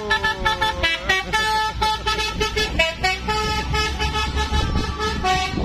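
Telolet musical horn on an odong-odong playing a quick tune of stepped notes, starting with a falling slide, over the low rumble of the vehicle; the horn cuts off abruptly at the end.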